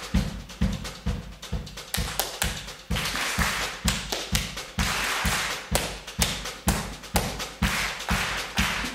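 Body percussion in a fast, steady rhythm: hands slapping the chest and body for deep thumps, alternating with sharp hand claps.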